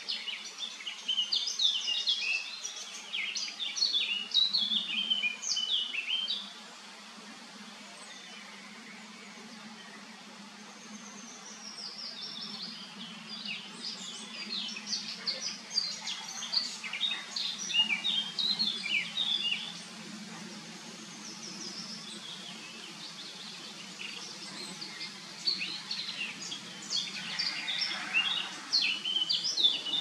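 Songbirds singing in three spells of quick, high chirping phrases, the loudest sound, over a steady low hum of honeybees flying at the hive entrance.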